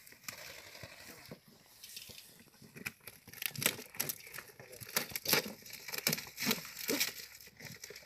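Cardboard boxes being handled and torn open by hand: crinkling, tearing and a run of sharp crackles and knocks, busier in the second half.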